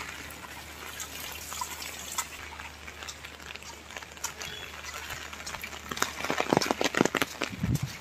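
Steady rushing of rain and running water, with a quick run of sharp taps and knocks from about six to seven and a half seconds in.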